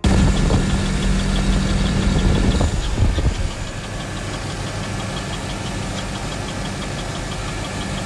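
GMC Sierra's 5.3-litre V8 idling with a rapid, even ticking: lifter tick from a collapsed hydraulic lifter, a common failure in these engines' cylinder-deactivation lifters.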